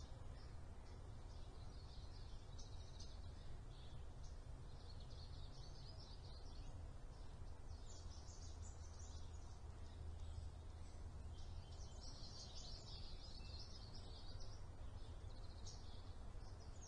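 Faint chirping and twittering of small birds, coming in bursts of a second or two several times, over a steady low hum.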